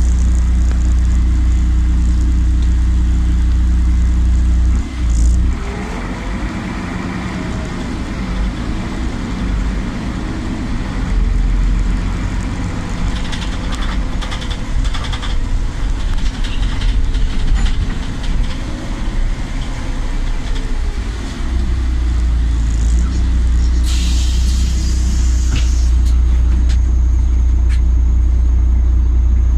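Solaris Urbino 12 city bus heard from inside the cabin: the diesel engine idles, then the bus pulls away about five seconds in, its engine note rising and falling through the gear changes. After about twenty seconds it settles back to a steady idle, and a two-second hiss of compressed air follows as it stands.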